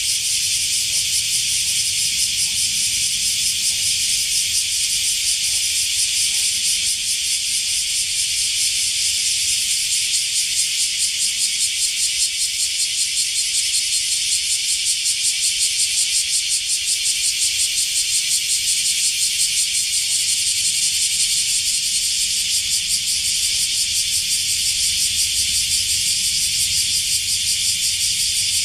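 A steady, high-pitched buzzing chorus of insects, pulsing very rapidly and without a break.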